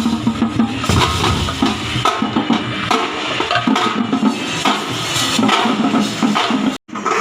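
Loud, fast drumming with other percussion in a dense, continuous rhythm, as played at a Kerala temple festival. It cuts out abruptly for a split second near the end.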